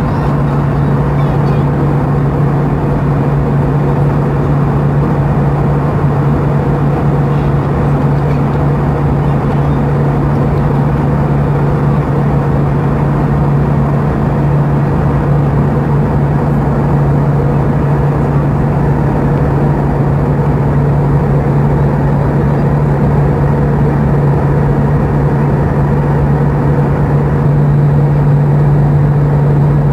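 Airbus A320 jet engine droning steadily in flight, heard inside the cabin over the wing: a loud, even roar with a strong low hum, growing slightly louder near the end.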